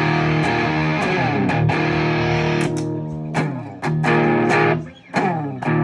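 Distorted electric guitar playing a heavy riff: held low notes, then short chugs broken by several quick slides down the neck, with brief stops between phrases.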